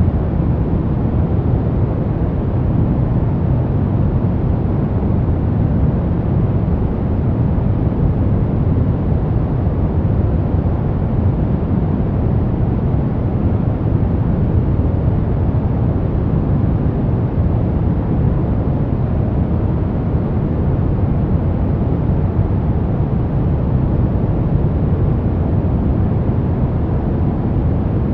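Steady, unchanging white noise for sleep and focus, weighted heavily to the low end, so it sounds like a deep, even rush rather than a bright hiss.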